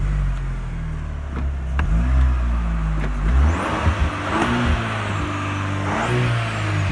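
Exhaust of a 2.7-litre turbo engine through a Flowmaster 40 Series muffler, heard from outside the vehicle: it idles steadily, then is revved in several quick throttle blips from about halfway in.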